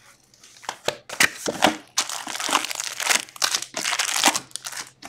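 Foil-wrapped Upper Deck 2023-24 Series Two hockey card packs crinkling and rustling as a hand pulls them out of the cardboard box. The sound comes in irregular bursts, starting after a brief pause.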